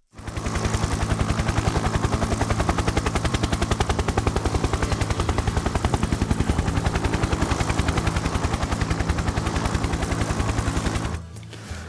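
Helicopter rotor chopping at a rapid, even beat over a steady low engine hum, cutting off about eleven seconds in.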